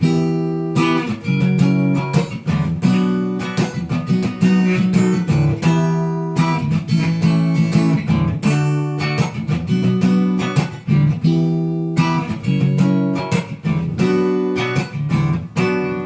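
Acoustic guitar strummed in a steady rhythm, the chords changing every couple of seconds.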